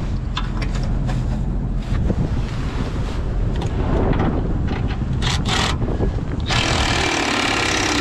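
Wind buffeting the microphone with scattered clicks and knocks of hand tools on the fan's motor mount. About six and a half seconds in, a cordless power tool runs for about a second and a half and is the loudest sound.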